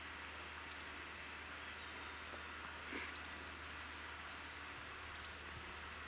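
Great tit singing: a thin, high two-note phrase, the first note dropping to a lower second, repeated three times about two seconds apart.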